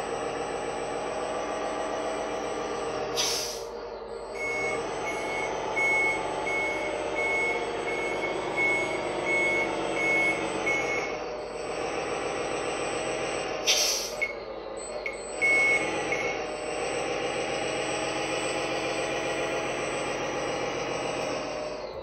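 Simulated diesel truck sound from the multi-function sound unit in an MAN F2000 RC truck: a steady engine hum while the truck drives. Twice there is a short air-brake hiss, each followed by a run of evenly spaced reversing beeps.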